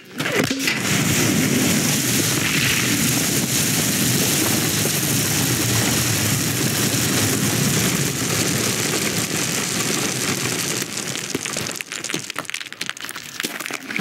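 A torrent of grain seeds pouring down a chute in one long, heavy rush for about ten seconds. It then thins out into scattered rattles and clicks as the seeds settle.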